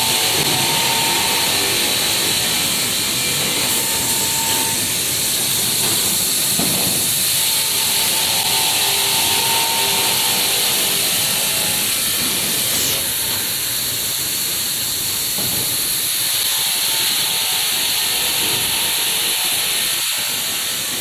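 Fiber cement board cutting and grinding machinery running, a steady hiss with a faint whine that comes and goes.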